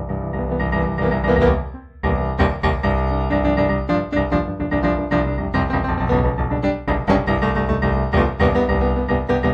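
Solo piano music: a stream of struck notes and held chords, with a brief break about two seconds in before it carries on.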